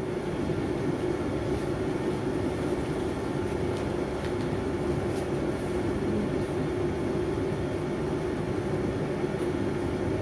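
A steady machine drone, with faint crackles of joss paper sheets being handled.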